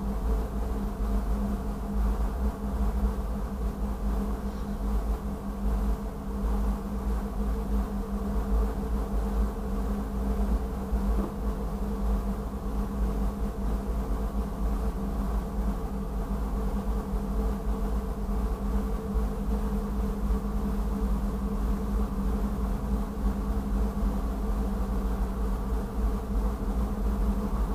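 Diesel locomotive engine idling, a steady buzzing hum heard from inside the cab.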